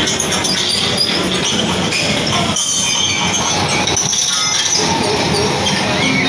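Loud music mixed with crowd noise, with no clear speech standing out.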